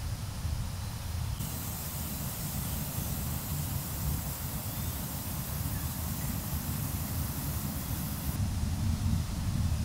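Charcoal fire under a wire grill grate of toasting bread: a steady hiss that comes in about a second in and stops shortly before the end, over a low rumble of wind on the microphone.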